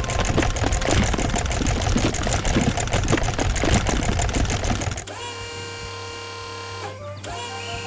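Fast, continuous mechanical rattling of a hydraulic drill at work, which cuts off abruptly about five seconds in. Quieter steady background music follows.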